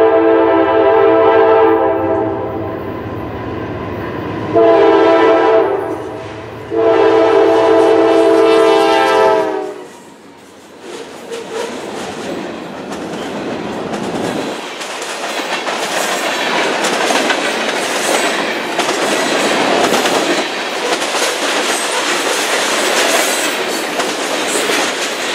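A GE C40-9W freight locomotive's air horn sounds three long blasts: the first ends about two seconds in, and the last cuts off about nine and a half seconds in. The freight cars then roll past with steady clickety-clack of the wheels on the rails, growing louder toward the end.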